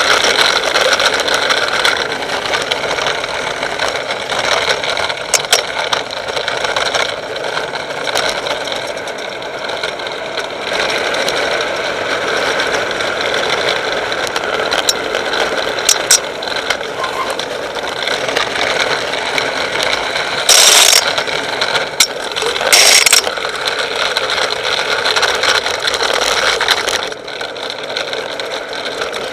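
A vehicle rolling down a steep, wet asphalt road: steady road noise and rattling. Two short, loud hissing bursts come about two-thirds of the way through.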